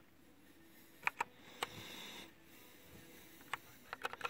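Keys with Gateron Brown switches on a Glorious GMMK mechanical keyboard being pressed: short sharp key clacks, a pair about a second in, another just after, one past the middle and a quick run of presses near the end.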